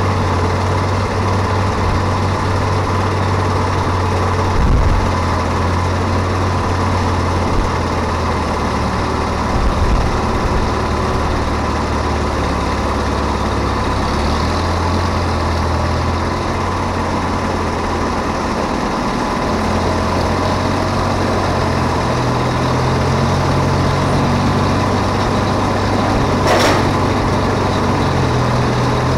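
A large engine running steadily, its pitch shifting a little now and then, with a sharp knock near the end.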